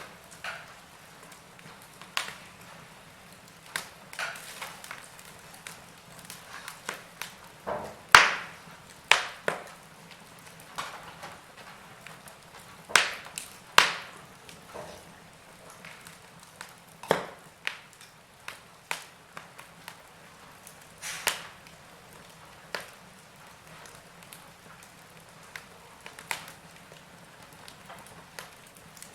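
Wood fire burning in a fireplace: irregular sharp crackles and pops from the logs over a faint steady hiss, with the loudest snaps about eight, thirteen and fourteen seconds in.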